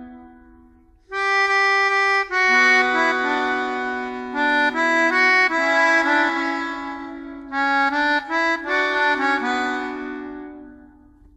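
Instrumental melody on a free-reed instrument such as an accordion, with held chords under the tune. It enters after a short gap about a second in, plays through in long phrases, and fades away just before the end.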